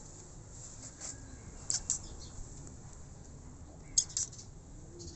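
Cat crunching dry kibble from a plate: a few short, sharp crunches, the loudest about four seconds in.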